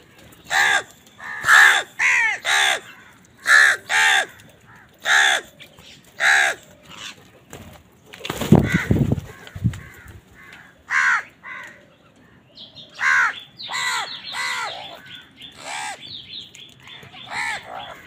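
House crows cawing over and over, a dozen or so harsh caws in short groups. About eight seconds in there is a loud, low, rushing burst of noise lasting a second or so, and later a thin, high chatter runs under the caws for a few seconds.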